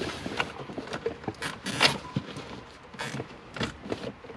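Scattered clicks and rustling of wiring and plastic under a car dashboard, with short zipping rasps about one and a half to two seconds in, as nylon cable ties are pulled tight to mount a remote start module.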